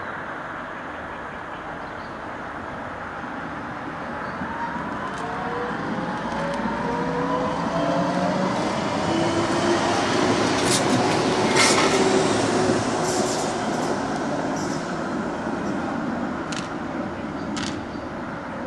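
Low-floor electric tram approaching and passing close by, loudest about halfway through and then fading. Under the running noise a faint motor whine climbs in pitch, and a few sharp clicks come as it goes by.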